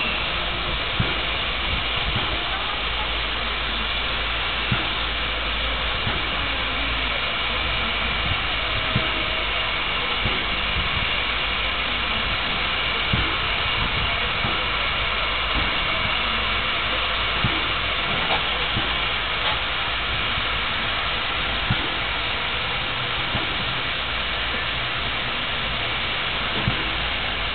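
PKP class Pm36 steam locomotive hissing steam steadily, with short sharp knocks every second or two.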